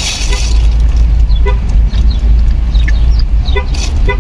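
Steady low rumble of a car heard from inside the cabin, with a few short faint chirps.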